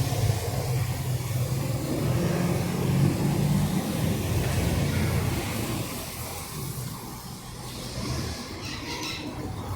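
A car passing close by on a city street, its engine hum loudest through the first half and then fading away.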